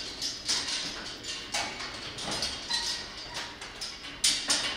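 A series of irregular sharp clicks and knocks, roughly two a second, with the loudest pair near the end.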